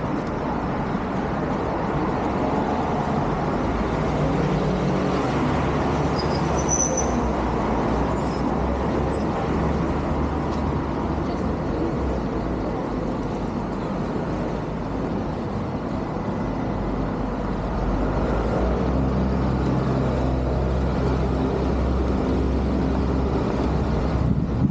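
Road traffic on a busy street: a steady noise of vehicle engines and tyres, with a deep engine rumble from a bus or other heavy vehicle that grows stronger in the last several seconds.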